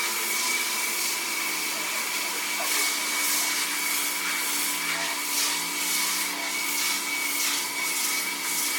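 Carpet-cleaning vacuum machine running with a steady whine, with repeated swishing strokes over the carpet.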